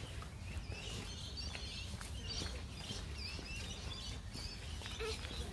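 Small birds chirping and twittering, many short overlapping calls, over a low steady rumble of outdoor background noise.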